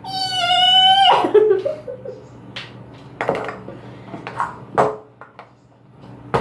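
A child's high-pitched squeal held for about a second, rising slightly and then sliding down, followed by a few scattered light clicks and taps.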